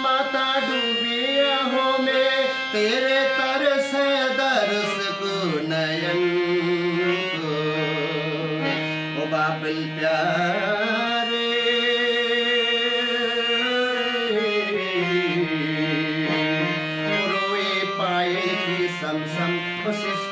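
Harmonium playing sustained reedy chords and melody while a man sings along, holding long notes that slide between pitches.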